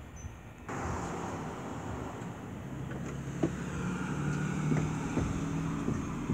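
A van's engine running as it drives past on the street, with a low steady hum through the middle and a couple of sharp knocks.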